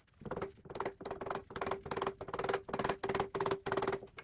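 Quick repeated rubbing strokes on wood, about three a second, with a steady low tone running under them.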